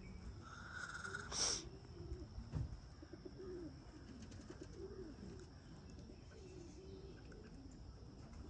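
Pigeons cooing: soft, low coos that rise and fall, repeated again and again. A short, sharp click about a second and a half in and a steady high-pitched tone lie behind them.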